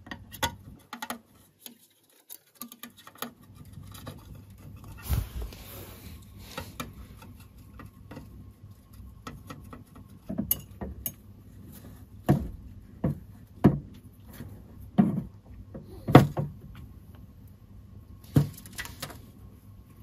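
Irregular sharp taps and clicks, coming more often and louder in the second half, with a brief rustle about five seconds in.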